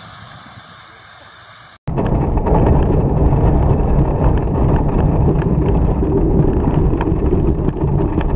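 A COMAC C919 airliner's jet engines rushing and fading for about two seconds. Then a sudden cut to a loud, steady, deep rumble of wind and engine noise from inside a small aircraft's cockpit as it flies low and banks.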